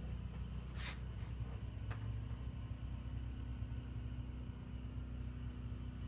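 Steady low hum of indoor room tone, with a short rustle about a second in and a faint click near two seconds.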